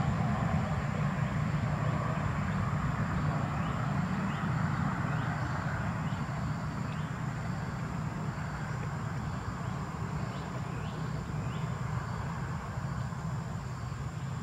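Steady low outdoor rumble, with a run of short, high, falling chirps from about four to twelve seconds in.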